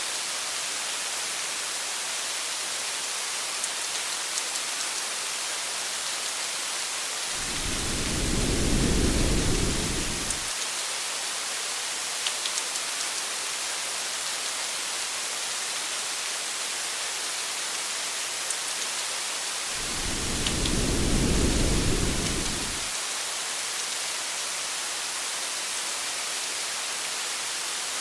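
Steady hiss of heavy rain with a few faint drop ticks. Two low thunder rumbles, each about three seconds long, swell and fade: one about a quarter of the way in, the other about two-thirds of the way through.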